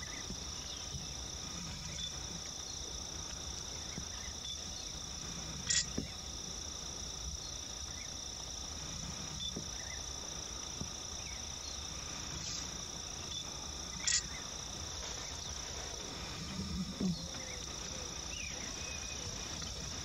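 Steady high-pitched insect drone in marshland, two unbroken tones like crickets, over a low rumble. A few short, sharp clicks break in, the loudest about six and fourteen seconds in.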